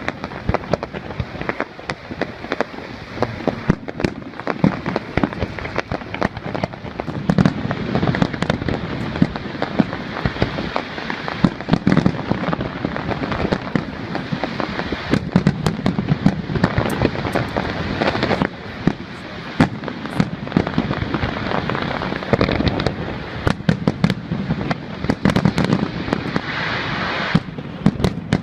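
Fireworks display: a continuous, dense stream of sharp bangs and crackles, with deep booms of bursting shells swelling up again and again.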